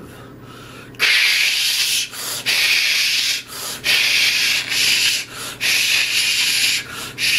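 A loud, harsh hissing, rasping noise in uneven bursts of about a second each with short breaks, starting about a second in. It comes as the monster is brought to life.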